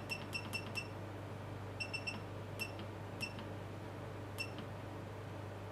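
Control keypad of a Kernel ultraviolet therapy lamp beeping at each button press: a quick run of short, high beeps, then a few more spaced out. The treatment timer is being stepped down to a 15-second exposure.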